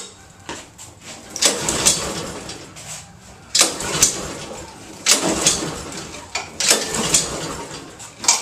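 Honda walk-behind lawn mower being pull-started four times by its recoil starter, each pull cranking the engine briefly without it catching. The owner puts the failure to start down to the fuel valve having been off.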